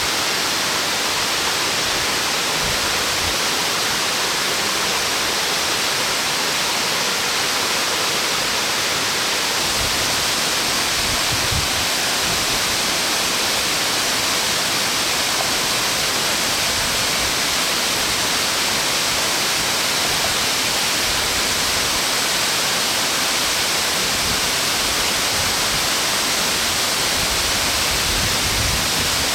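Waterfall of about 40 m, its falling water making a steady, even rush.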